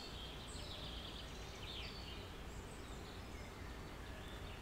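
Small birds chirping on and off in short high calls, over a low steady hum.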